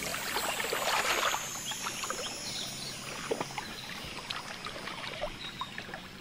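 Water lapping and splashing, a steady wash broken by small irregular splashes.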